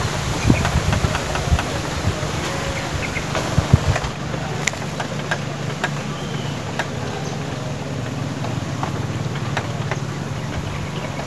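A steady low engine-like hum, with scattered small clicks and rustles from hands working a fishing hook and line. Two louder clicks come about half a second and about four seconds in.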